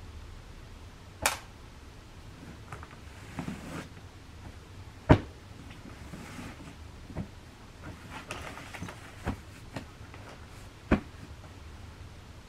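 A handful of sharp clicks and knocks, like objects being handled and set down, over a low steady hum. The loudest knock comes about five seconds in.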